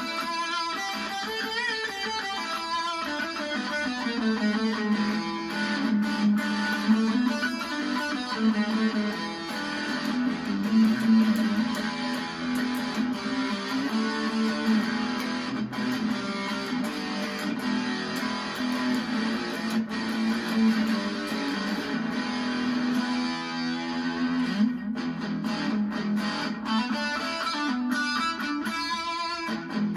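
Electric guitar on its bridge humbucker played through a Dark Realm fuzz pedal, a Big Muff-style fuzz blended with a Colorsound-style fuzz, with continuous fuzzed riffs and chords.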